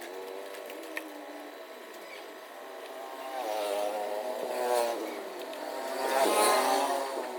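Small electric motor whining, its pitch rising and falling as it speeds up and slows down, loudest about six seconds in.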